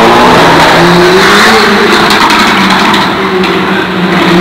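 Ford Fiesta ST's engine revving hard as the car accelerates past, loud, with a few sharp crackles about two seconds in.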